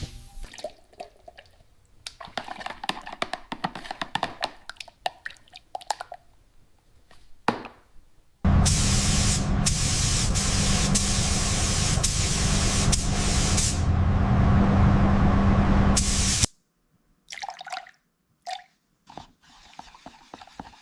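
Truck restoration work sounds: crackling and dripping noises, then a loud steady spraying hiss with a low motor hum that runs for about eight seconds and cuts off suddenly.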